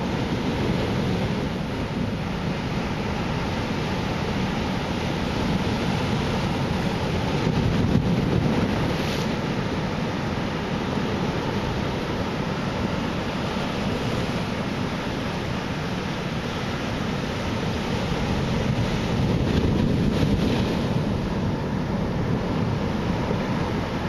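Ocean surf from a typhoon swell breaking on the shore: a steady rush of waves that swells louder about a third of the way in and again near the end.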